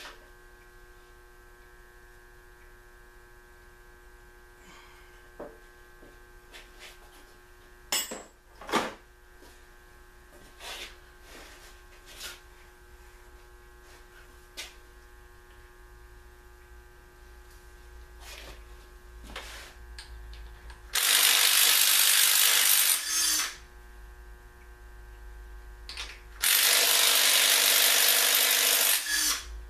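Cordless impact wrench running in two bursts of two to three seconds each, near the end, undoing bolts on the bottom end of a 1956 Packard engine block. Before that, a few light clinks and knocks of metal parts.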